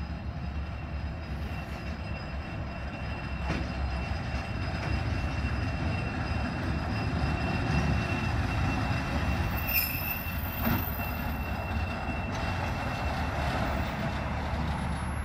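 Yellow rail maintenance railcar rolling slowly along the track with a steady low rumble and wheel noise, plus a thin, steady high squeal from the wheels. It grows louder as it nears, and a few separate knocks sound over the rails.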